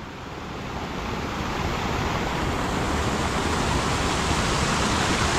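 Mountain stream rushing and splashing over rocks in small waterfalls: a steady rush of water that grows louder over the first two seconds, then holds.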